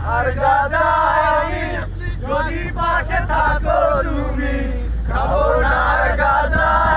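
A group of young people singing and shouting together in chorus, the song breaking off briefly twice, over a steady low rumble.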